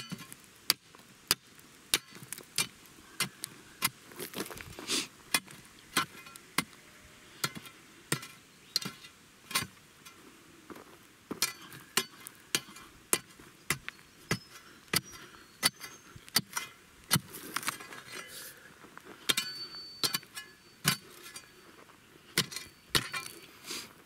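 Steel crowbar stabbed repeatedly into the stony floor of a post hole to loosen soil and rock: sharp clinking strikes about twice a second, with a short metallic ring late on.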